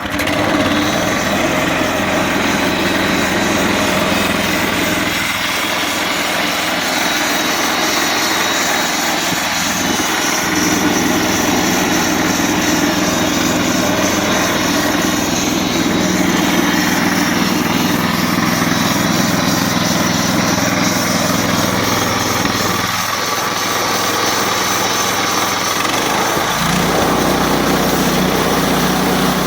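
Harbor Freight band sawmill's small gasoline engine running steadily under power. Its note changes near the end.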